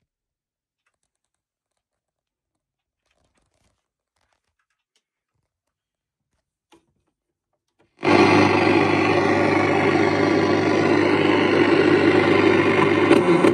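Near silence with a faint click, then about eight seconds in a National Panasonic RQ-551LJS boombox's radio comes on loud through its speaker with a steady hiss and hum and no speech or music, cutting off sharply at the end.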